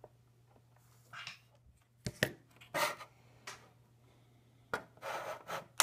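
Handling noise from a synthesizer circuit board being moved and turned over: short rubbing scrapes with a few sharp clicks, two of them about two seconds in and one at the very end.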